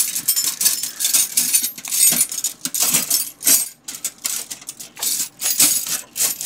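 A hand rummaging through a tray heaped with steel-wire pegboard hooks: a continuous clatter of wire hooks clinking and jangling against each other, which stops near the end.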